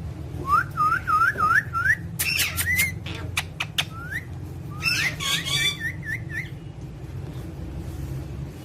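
Pet parrot whistling a quick run of about five short rising notes, then giving harsh squawks and sharp clicks, another rising whistle, and a burst of rough calls. A steady low hum runs underneath.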